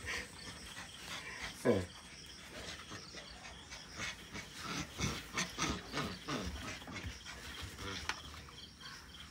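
Puppy making quiet, short play growls and whines as it jumps up and tugs at a hand, with one brief falling whine about two seconds in.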